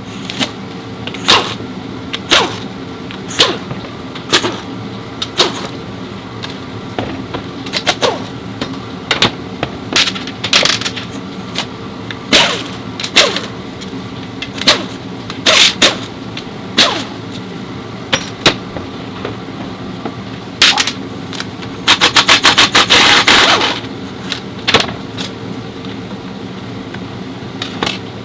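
Metal tools clinking and knocking on a car's underside during transmission removal, over a steady workshop hum, with a rapid rattle lasting about two seconds near the end.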